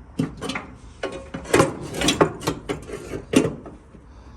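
Metal car parts and tools being handled: an irregular series of about nine clanks and knocks.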